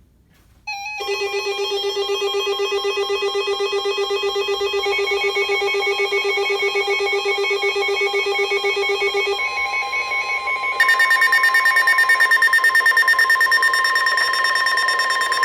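Emergency alert tones: a warbling electronic alarm tone for about eight seconds, then a steady tone near 1 kHz, joined a second or so later by a louder, higher, pulsing tone.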